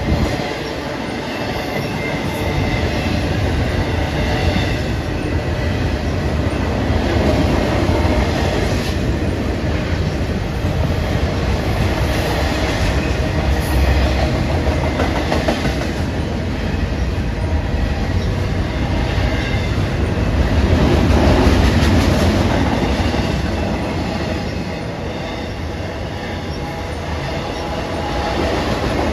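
BNSF intermodal freight train's double-stack container and trailer flatcars rolling past, a steady noise of steel wheels on rail that swells louder about three quarters of the way through.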